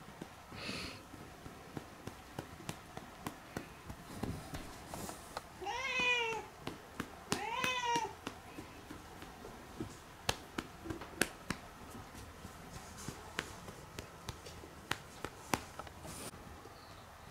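Domestic cat meowing twice, short calls that rise and fall in pitch, about six and eight seconds in. Between them and around them a hand pats a cat's rump over and over, short light taps about two or three a second.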